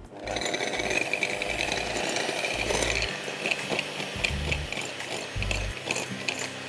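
Electric hand mixer running, beating egg yolks with sugar in a bowl. It starts abruptly and runs steadily, with frequent clicks from the beaters.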